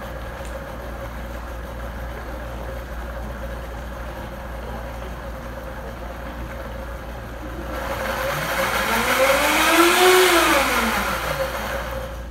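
Countertop blender motor running at a low, steady hum, then about eight seconds in spinning up to a loud rising whine that peaks and winds back down over about three seconds.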